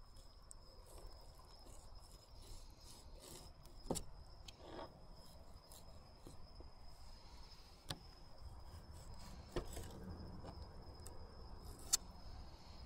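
Faint scraping and rubbing of a knife working through a gafftopsail catfish near its hard, bony fin, with a few sharp clicks, over a steady high-pitched tone.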